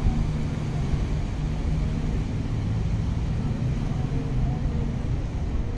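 Steady low engine rumble, holding even throughout.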